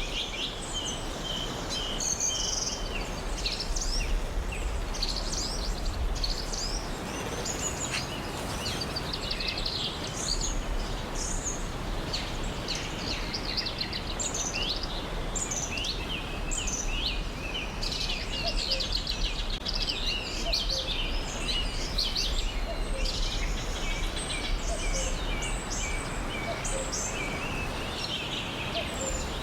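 Many small birds chirping and trilling over a steady background hiss.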